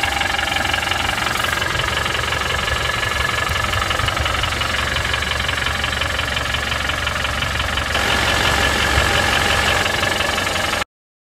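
Land Rover Defender 110's 200Tdi four-cylinder turbodiesel idling steadily with diesel knock, a little louder about eight seconds in, then cutting off suddenly near the end.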